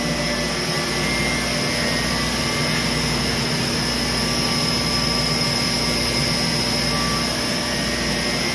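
Maple-sap reverse osmosis machine running with its high-pressure pump on: a loud, steady whir with a constant high whine and a low hum, pushing sap through the membranes on its first pass.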